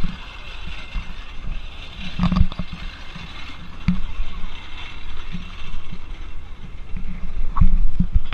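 Small belt-driven antique threshing machine running with a steady mechanical rattle, over irregular low thumps.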